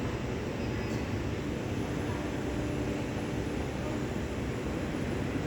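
Steady low machine hum with a faint constant tone, from workshop machinery running without pause.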